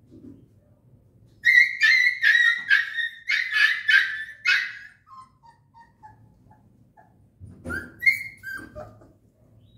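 Puppy yelping at being given a vaccine injection: a rapid run of about eight high-pitched cries that trail off into soft, falling whimpers, then a few more cries near the end.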